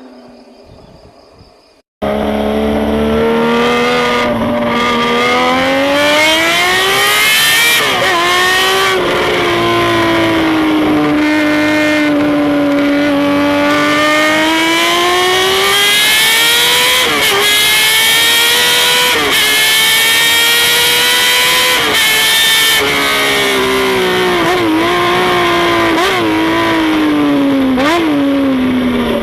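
Honda CBX 1050's inline-six engine running hard, cutting in suddenly about two seconds in. Its pitch climbs and falls slowly with the revs, then dips briefly several times in the second half like quick throttle lifts or gear changes.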